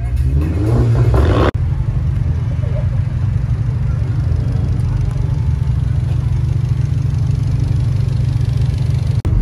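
A car engine revs up, rising for about a second and a half, and cuts off abruptly. Then a turbocharged TSI petrol engine with an aftermarket cone-filter intake idles steadily with a low hum.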